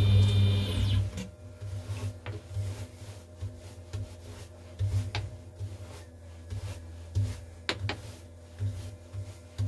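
A bristle brush sweeping aluminium chips across a metal T-slot machine table: irregular scratching swishes with a few sharp clicks of chips and bristles striking metal. A motor's whirr winds down and stops about a second in, leaving a low steady hum.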